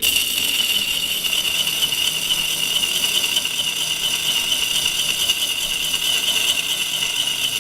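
Angle grinder running off a 12-volt car battery, its disc grinding steadily against a nail in a harsh, high scraping hiss that cuts off suddenly near the end. On 12 volts the grinder turns far too slowly to cut.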